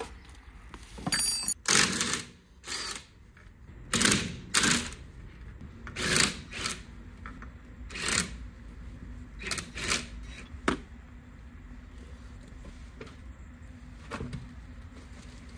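Cordless impact wrench spinning out the wheel bolts of a car's front wheel, run in about ten short rattling bursts of well under a second each, with a sharp metallic click near the end of them.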